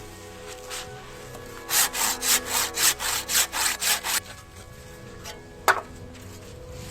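Hand saw cutting wood in a quick run of about ten strokes, some four a second, starting about two seconds in. A single sharp knock comes a moment after the sawing stops.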